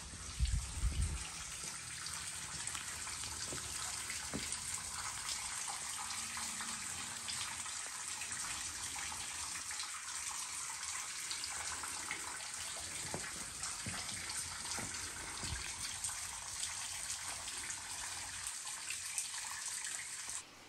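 Water trickling and dripping steadily into a limestone spring. A brief low thump about half a second in.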